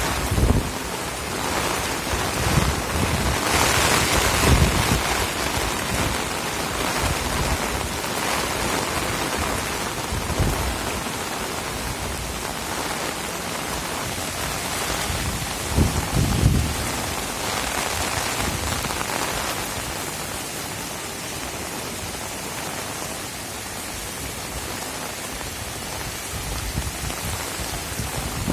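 Heavy rain falling steadily, with short low gusts of wind buffeting the microphone a few times.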